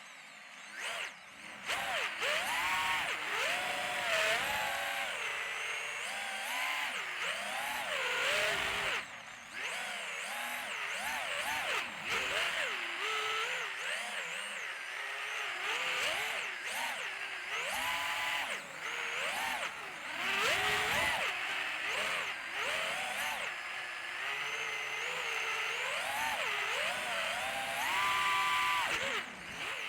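FPV racing quadcopter's brushless electric motors whining, the pitch sliding up and down as the throttle is worked, over a steady rush of air. The whine drops away briefly a few times where the throttle is cut.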